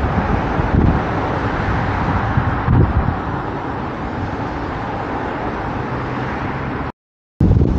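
Wind buffeting a car-roof-mounted microphone over the steady noise of road traffic, in gusts that are strongest at the bottom end. Near the end the sound cuts out completely for about half a second.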